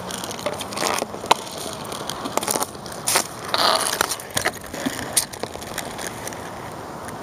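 Inline skate wheels rolling over rough asphalt close by, with scattered sharp clacks of a hockey stick and ball on the pavement.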